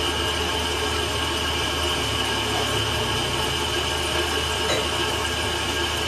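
Metal lathe running steadily, with a constant high whine over a low hum.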